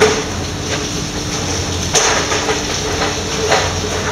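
Factory machinery running steadily, with sharp metallic clanks at the start, about two seconds in, and again about a second and a half later.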